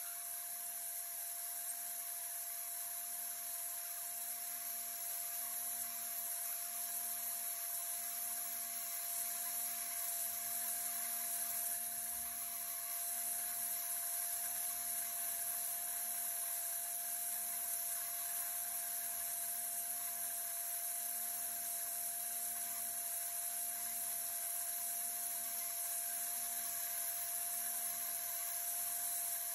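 HumminGuru ultrasonic vinyl record cleaner running its cleaning cycle, with the record turning slowly in the bath. It makes a steady high hiss with a constant mid-pitched whine and a faint low hum beneath.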